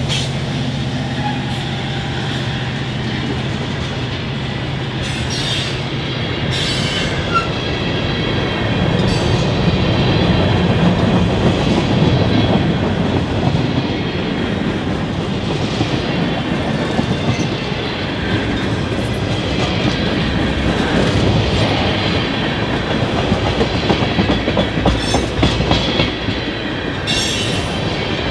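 A freight train's tank cars and covered hoppers roll past close by with a steady wheel rumble, sharp clacks over the rail joints and a faint high wheel squeal at times. A low diesel drone from the departing locomotives fades out after about six seconds.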